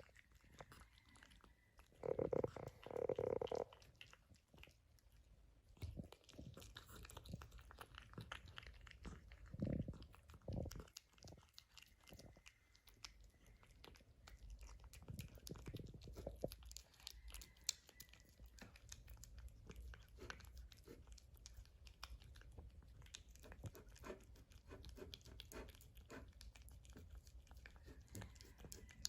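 Cat chewing and licking wet tuna in gravy, close-miked: a steady run of small wet clicks and smacks. There is a louder stretch about two seconds in.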